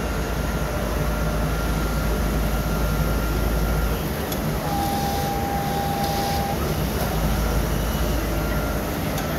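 KMC-718N automatic cloth cutting machine running: a steady mechanical hum and rumble amid the noise of a busy exhibition hall. The low rumble eases about four seconds in and comes back near seven seconds, and a short, clear high tone sounds for about two seconds in the middle.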